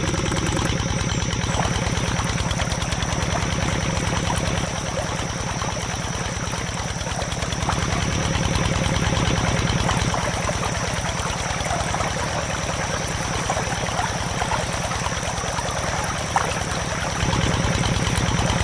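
Mini stationary diesel engine running at a steady chug, belt-driving a small centrifugal water pump, with water splashing out of the pump's outlet pipe onto the ground.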